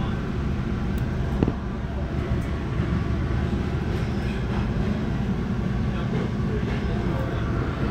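Steady rumble of an MBTA commuter rail train running along the track, heard from inside the passenger coach, with one sharp click about a second and a half in.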